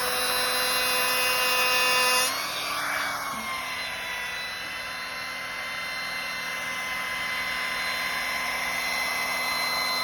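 Trim router spinning a sanding drum, sanding an edge with a steady motor whine. About two seconds in the sound drops in level and changes, then the router runs on steadily.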